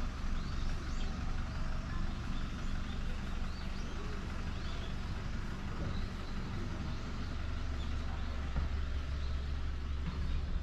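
Outdoor ambience: a steady low rumble with faint, scattered chirps of small birds, mostly in the first half.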